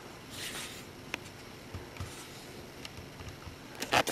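A few scattered faint clicks and a brief rustle, with a cluster of clicks near the end: keys being pressed on a Logitech Revue keyboard controller.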